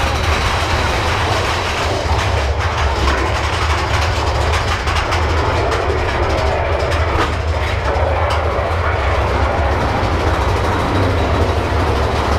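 Big Thunder Mountain Railroad mine-train roller coaster cars rumbling and clattering along the track, heard from on board with a steady low rumble.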